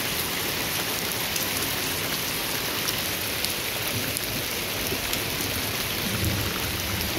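Rain of large, heavy drops falling steadily on garden plants and ground: an even hiss with a few sharper drop ticks scattered through it.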